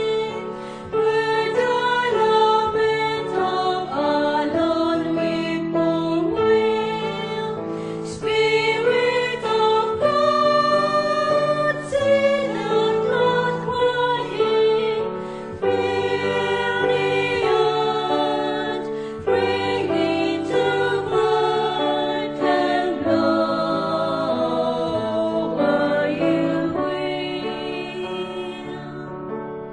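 A choir singing a hymn in several parts, with sustained notes.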